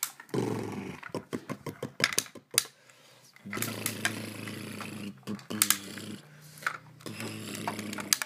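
A battery-powered toy garbage truck giving off a steady low hum in spells, near the start, then from about the middle and again near the end, amid clicks and clatter of plastic toy parts being handled.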